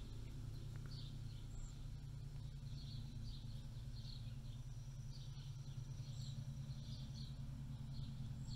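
Faint outdoor ambience: small high chirps recurring about twice a second over a steady low hum.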